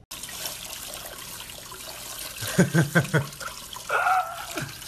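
Water running from a sink faucet's spray head over a puppy being rinsed, a steady hiss. A quick run of short voice sounds comes in the middle, and a brief high cry about four seconds in.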